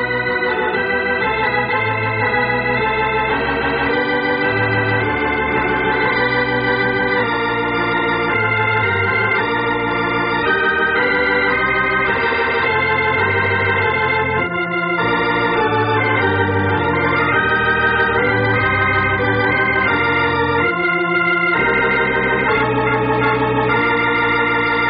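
Organ music playing an old-time radio drama's closing theme: sustained chords under a moving melody, with a recurring low bass note.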